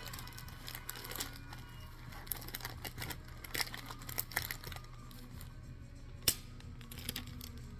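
Paper and tape being handled while crafting: scattered rustles and short clicks, with one sharp click about six seconds in, over faint background music.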